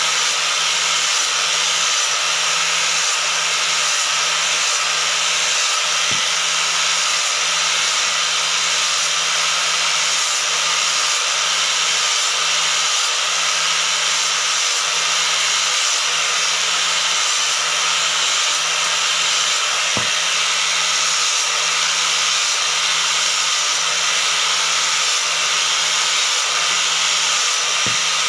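TOTAL electric angle grinder running steadily with an abrasive disc held against the edge of a hardwood slab, grinding and sanding the wood.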